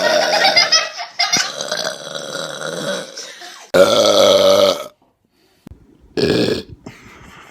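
Several loud human burps, one after another with abrupt breaks between them. The loudest is a long pitched belch of about a second just past the middle, which cuts off suddenly into a moment of silence; a short burp follows.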